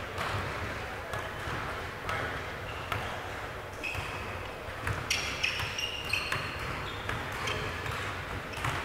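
Game play in a gym: a ball bouncing and thudding on the court, with short high squeaks from about four seconds in, echoing in a large hall.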